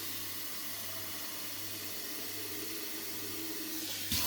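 Tap water running steadily, rinsing lint and gunk out of an electric kettle, over a steady low hum.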